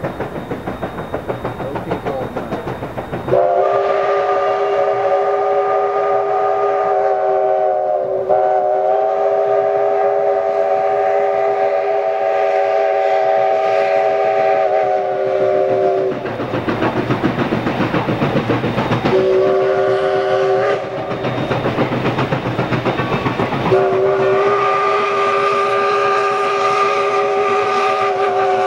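Steam locomotive's chime whistle blowing a chord of several notes in long, long, short, long blasts, the pattern of a grade-crossing signal. Underneath, the engine's rapid exhaust chuff is heard as it works hard pulling its freight train.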